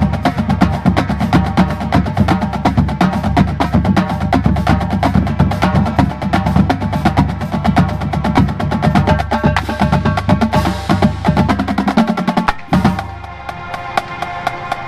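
Marching drumline playing a cadence: snare drums and bass drums in a fast, dense pattern. About twelve seconds in, the low bass drum notes stop and the playing drops to quieter, sparser strikes.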